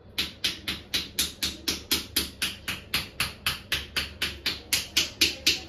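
Wooden mallet knocking on a wooden stick pressed against the knee during bone-setting treatment. It is a steady, even rhythm of sharp knocks, about four a second.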